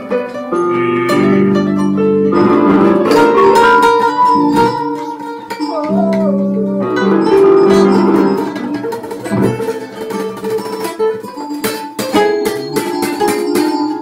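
Instrumental music: an electronic keyboard playing chords and melody together with a plucked acoustic guitar.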